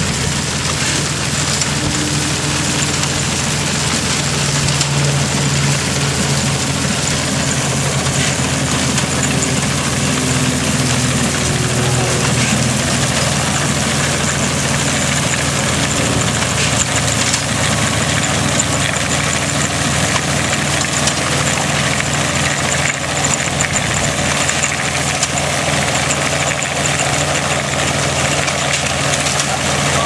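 Farmall tractor engine running steadily under load, pulling a grain binder, with the binder's mechanism rattling along over the engine.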